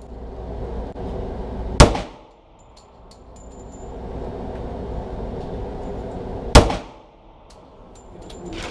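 Two pistol shots about five seconds apart in an indoor range, each a sharp crack with a short ringing echo, over a steady background hum.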